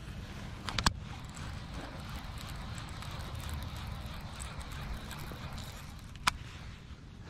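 Daiwa Tatula TW100 baitcasting reel being wound in to retrieve a lure, faint under a low steady rumble, with a sharp click about a second in and another a little after six seconds.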